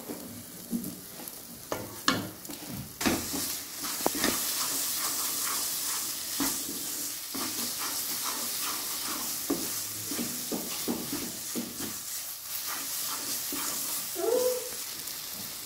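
A wooden spatula stirring and scraping mawa (khoya) with sugar around a nonstick pan, in irregular strokes over a steady sizzle. The mawa is being roasted (bhuna) on the flame.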